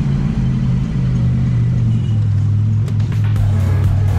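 Side-by-side UTV engine running steadily under way, its low drone changing pitch a couple of times, with background music mixed over it.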